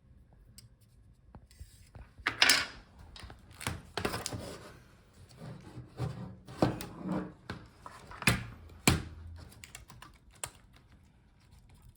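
Handling of Dell G15 laptop parts during disassembly: irregular clicks and knocks of parts and small tools on a work surface, sharpest about two and a half seconds in and twice between eight and nine seconds in.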